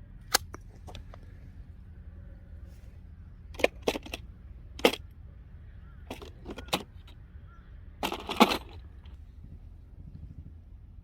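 About a dozen sharp, irregular clicks and snaps, spaced unevenly and bunching into a quick cluster near the end, over a low steady background hum.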